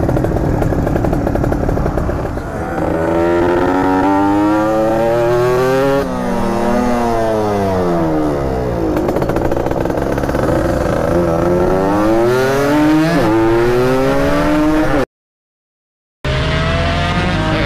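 Yamaha 125Z's 125 cc single-cylinder two-stroke engine running under the rider, revving up as the moped accelerates, easing off about six seconds in, then climbing in pitch again through the gears. Near the end the sound cuts out completely for about a second, then the engine picks up again.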